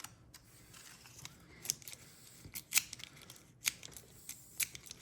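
Scattered small sharp clicks with faint rubbing and rustle: a car door lock and its small metal parts being handled at a workbench.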